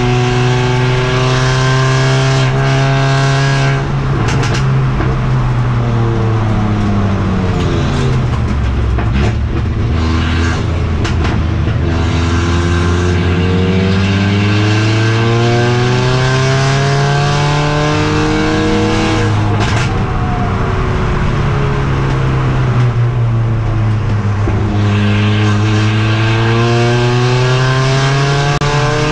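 Mercedes-AMG CLA45's turbocharged four-cylinder engine at racing speed, heard from inside the car. Its pitch drops twice as the car slows and downshifts, then climbs again under hard acceleration, with a few sharp clicks about four seconds in and again near ten seconds.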